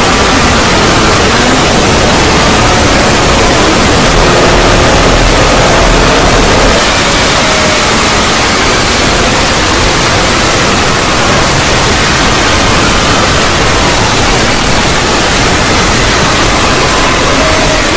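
Loud, harsh, static-like noise that holds steady throughout, with faint wavering tones gliding beneath it: a distorted creepy sound effect.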